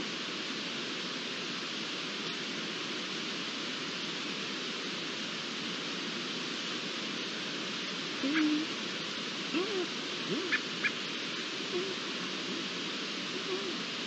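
Short, low mewing calls from an unseen Iberian lynx over a steady hiss: one longer call about eight seconds in, then a string of shorter, arching calls with a few faint clicks among them.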